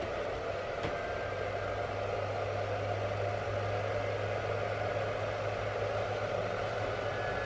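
Onboard golf cart battery charger running on mains power with a steady hum and a faint high whine. It has switched on and is charging the 48 V lithium battery.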